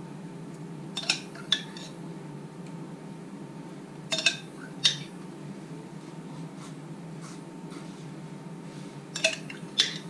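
A spoon clinking against a glass jar of apple compote as compote is scooped out, in three pairs of sharp clinks a few seconds apart, over a steady low hum.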